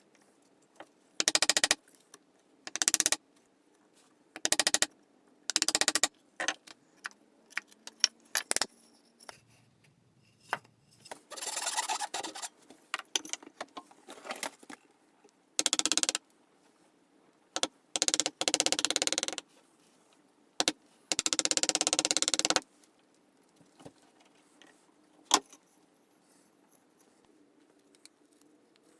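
A series of separate scraping strokes of a hand tool on wood, each lasting about half a second to a second and a half, with short pauses and a few sharp clicks between them; the strokes grow longer in the second half.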